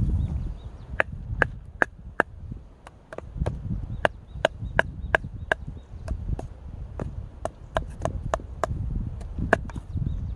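A blade chopping firewood: a run of about twenty sharp strikes into wood, two or three a second, starting about a second in, each with a short ring.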